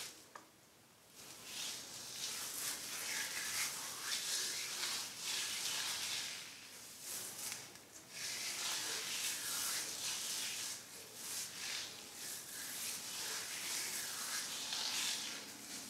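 Hands working through a section of wet, conditioner-coated hair during detangling, making a run of soft, irregular rubbing strokes, with a brief quiet gap near the start.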